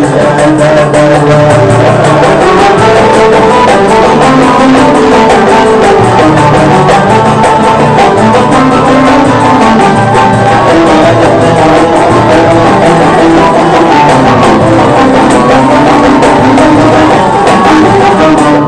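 Live Moroccan folk music, an instrumental passage: a plucked banjo-like lute playing the melody over hand-struck frame-drum beats.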